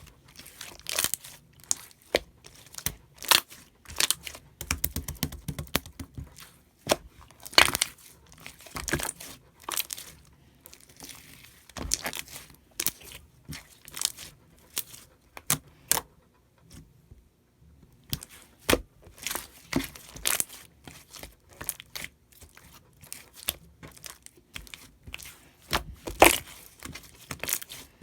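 Slime being pressed, poked and stretched by hand, giving irregular sticky clicks and crackly pops of trapped air. There is a quicker run of squishes about five seconds in.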